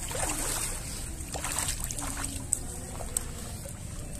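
Swimming-pool water sloshing and lapping as someone wades down the pool steps, with a steady low rumble.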